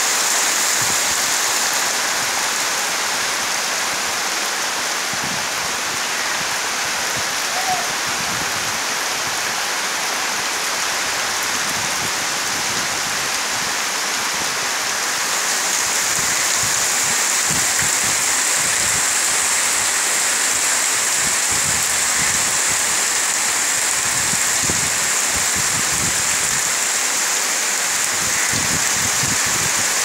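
Heavy monsoon rain pouring onto trees, leaves and ground: a steady hiss that grows a little louder and brighter about halfway through.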